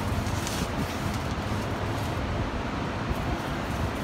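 Steady low rumble of background noise with no distinct event, plus a couple of faint ticks about half a second in.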